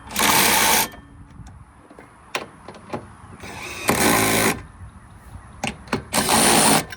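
Cordless power driver with a 19 mm socket running in three short bursts of under a second each, driving half-inch screws into a trailer deck at a low setting so as not to strip them, with small clicks and knocks between bursts.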